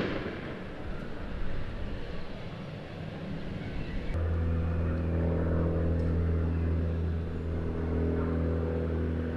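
Open-air background noise, then about four seconds in a steady low mechanical hum, like an engine or machine drone, starts suddenly and holds.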